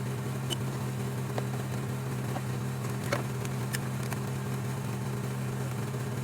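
Steady low hum of a running air conditioner, with a few faint clicks from tools or parts being handled.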